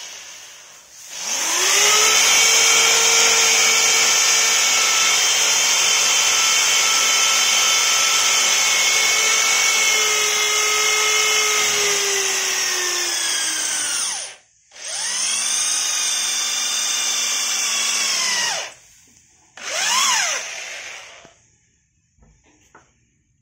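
Buildskill 13 mm impact drill drilling into a concrete wall: a steady motor whine over the noise of the bit cutting. It sounds in one long run of about thirteen seconds, its pitch sagging a little near the end, then after a short stop a second run of about four seconds. Then comes a brief trigger pull that spins up and winds straight down.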